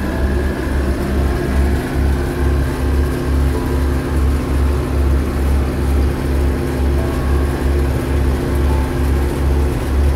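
Multicar utility truck's diesel engine running steadily while driving with a loaded bed, heard from inside the cab, a low drone that throbs about two to three times a second.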